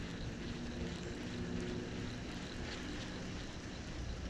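Steady low rumble of a distant engine, with wind noise on the microphone.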